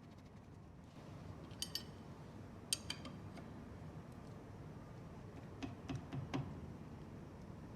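Metal tools and parts clinking lightly a handful of times as they are handled, over a low steady hum.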